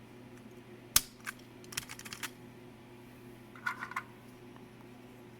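Plastic keycaps being pressed back onto the key stems of a Commodore SX-64 keyboard: a sharp click about a second in, then scattered clicks and taps, over a faint steady hum.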